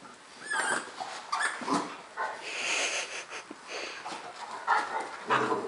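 A Rhodesian Ridgeback and a Dogo Argentino puppy play-fighting: irregular breathy huffs and growly noises, with a short high squeal about half a second in.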